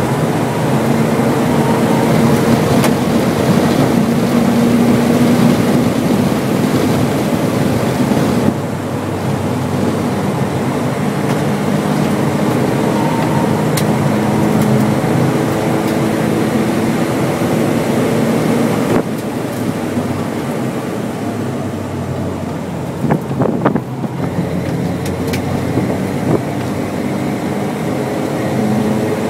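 Mercedes 180E's four-cylinder engine running under load inside the stripped-out cabin, with road and wind noise. Its note shifts up and down, drops suddenly twice, about a third and two-thirds of the way through, and a few knocks sound about four-fifths of the way in.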